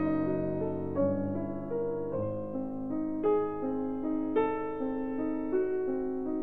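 Background piano music: a slow melody of single notes that start cleanly and fade, over held lower chords.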